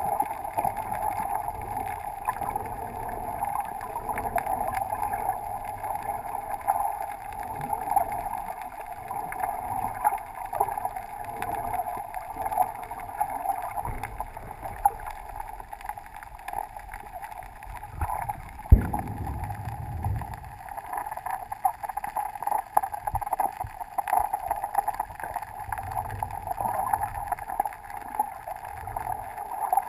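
Muffled underwater sound inside a GoPro's waterproof housing while snorkeling: a steady hiss with scattered faint clicks and crackles. A sharp knock comes about 19 seconds in, followed by a brief low rumble.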